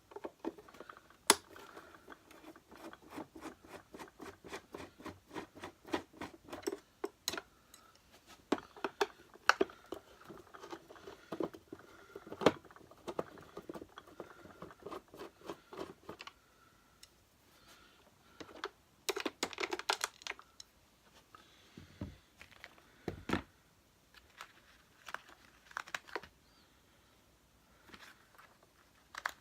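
Screws being undone from a plastic vacuum cleaner housing: a long run of quick screwdriver clicks. A brief plastic rattle follows, then two low knocks of parts set down and a few more clicks.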